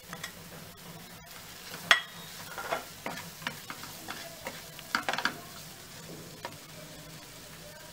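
Chopped onions with chilli and ginger-garlic paste sizzling in oil in a non-stick frying pan while a spatula stirs in turmeric and salt, scraping against the pan in sharp strokes, the loudest about two seconds in and a quick run of them about five seconds in.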